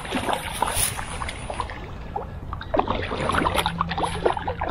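A hooked trout thrashing at the surface of a creek: a run of short, irregular splashes and slaps of water, over a steady low rumble.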